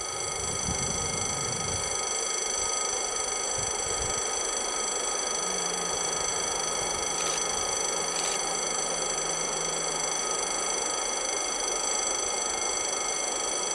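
A steady high-pitched whine with a ladder of overtones starts suddenly and holds unchanged over a mid-range hiss. A faint low hum comes in about halfway through and fades again.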